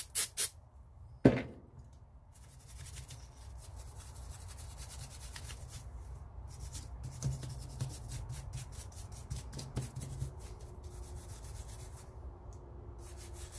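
Small bristle brush scrubbing solvent-wet metal rifle action parts with steady quick strokes, making a continuous scratchy rubbing. A single sharp knock sounds about a second in.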